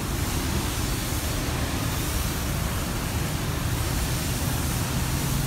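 Steady background noise of a downtown street: an even hiss with a low rumble, with no single event standing out.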